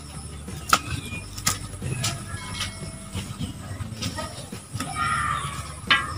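Open fire of wood shavings and sticks burning under a wok of oil, crackling with a steady hiss, with three sharp pops.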